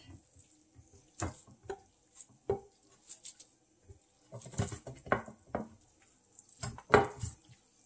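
A spatula scraping cooked spaghetti squash out of a nonstick frying pan into a ceramic baking dish: irregular soft scrapes and plops, bunched around the middle and again near the end.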